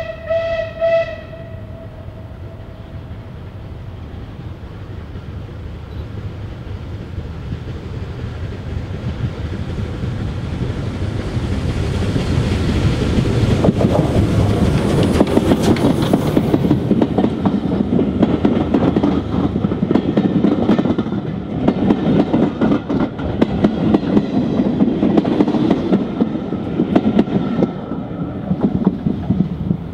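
A steam locomotive's whistle sounds and stops about a second in; then a rebuilt Bulleid light Pacific, a three-cylinder steam engine, approaches and passes with its train of coaches, the sound growing steadily louder into a dense clatter of wheels over rail joints as the engine and coaches go by.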